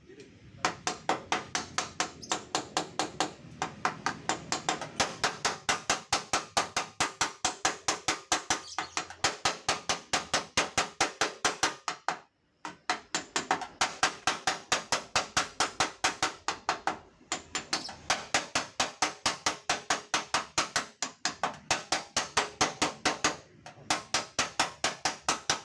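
Hammer tapping on the sheet metal of a dented car fender: rapid, even strikes, about four to five a second, with a short break about halfway. The dent is being knocked back out of the panel without repainting (ketok magic).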